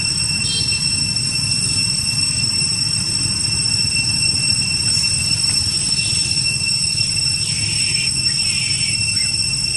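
Steady outdoor background: a continuous low rumble with a thin, steady high-pitched whine over it, and a few faint short squeaks about eight seconds in.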